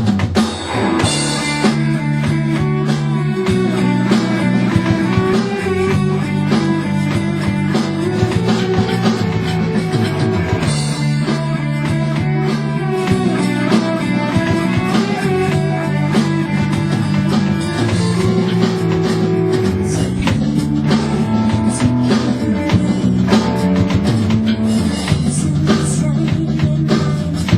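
A rock band playing a song live, guitar-led over a bass line, coming in abruptly out of silence at the start.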